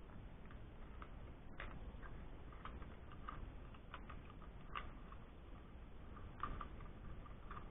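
Faint, scattered small clicks and taps of pliers working on an airsoft spring rifle's cylinder, twisting the cylinder head loose.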